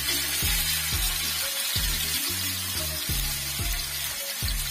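Background music with a steady beat, over the sizzle of horse mackerel shallow-frying in oil in a pan.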